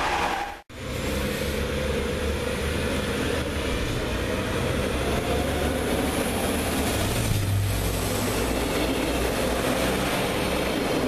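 BRB diesel multiple unit running along the platform and past, its engine humming steadily with wheel and rail noise, the engine note rising briefly about two-thirds of the way through. Just before it, a short burst of a different passing train cuts off abruptly.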